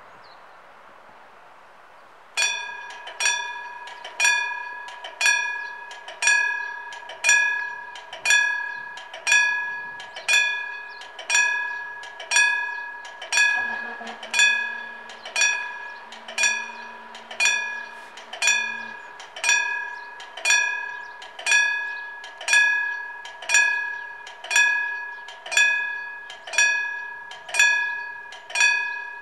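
Old Siemens level-crossing warning bells start about two seconds in, giving one ringing stroke about every second that fades before the next. The crossing is closing: its half barriers are coming down for an approaching train.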